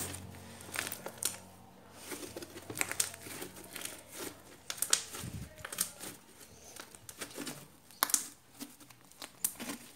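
Homemade glue slime being squeezed and stretched by hand, giving a string of small, irregular sticky clicks and crackles.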